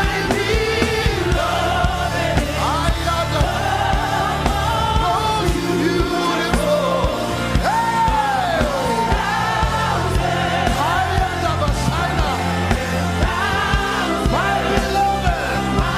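Live gospel worship music: voices singing over a band with a steady bass beat.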